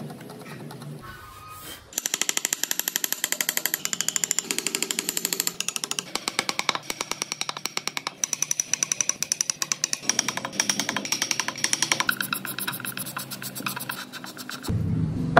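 A woodworking tool working a block of wood in rapid, even strokes, many a second, that start about two seconds in and stop shortly before the end.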